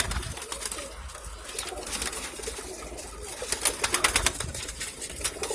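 Roller pigeons cooing in a loft, with a run of sharp clicks and rustles about three and a half seconds in.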